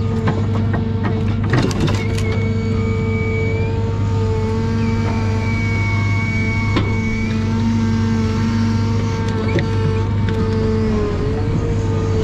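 John Deere 1010G forwarder running steadily while its hydraulic crane works, with a high whine that comes and goes as the crane moves. Clunks of logs and grapple knock together about a second and a half in, with single knocks later.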